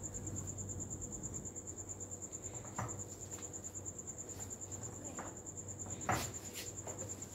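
A cricket trilling steadily, a high, fast-pulsing trill that never breaks. A few light knocks sound over it, the loudest about six seconds in.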